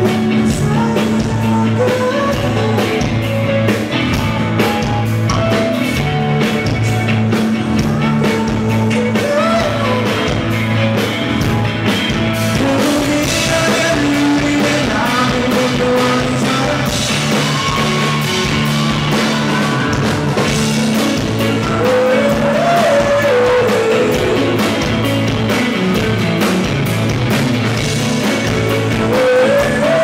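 Live indie rock band playing: a male vocalist sings over a Fender Telecaster-style electric guitar and a steady drum beat.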